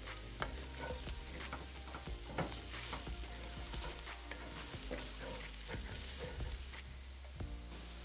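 Wooden spatula scraping and knocking through diced sweet potatoes and carrots in a skillet, with the hash sizzling as it fries; the strokes come irregularly several times a second.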